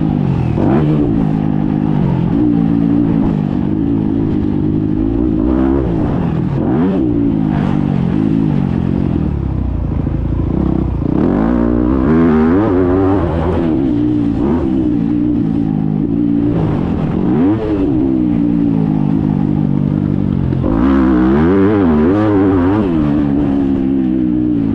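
Yamaha YZ-F four-stroke motocross bike engine, heard close up from the riding bike, revving hard and backing off over and over as it is ridden round a dirt track, its pitch rising and falling with each throttle change.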